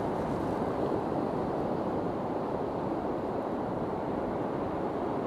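Steady rush of wind on the microphone mixed with surf breaking on the shore.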